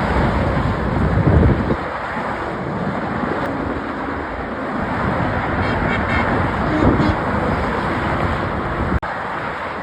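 Steady freeway traffic noise of vehicles rushing past, with a heavier low rumble in the first second and a half.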